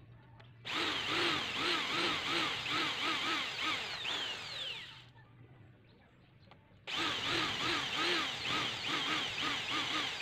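Electric drill with a 1/4-inch metal-cutting bit boring holes through a metal stair-nosing trim strip, running with a fast, evenly wavering whine. It runs for about four seconds, winds down, and after a gap of about two seconds starts again abruptly.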